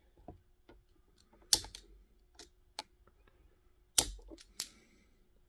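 Sharp, scattered clicks and taps of small plastic model-kit parts and hobby tools being handled, two of them louder snaps about a second and a half and four seconds in, over a faint steady hum.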